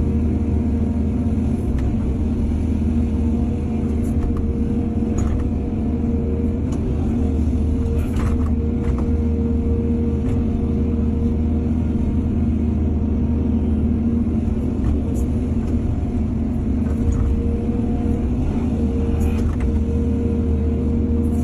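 Diesel engine of heavy earthmoving machinery running steadily with a low hum, broken by a few brief knocks.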